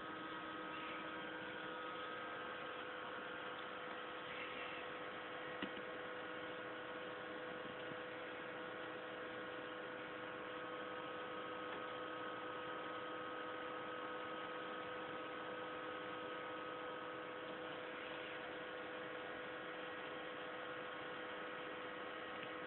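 Steady electrical hum with several held tones at a constant level, and a faint click about five and a half seconds in.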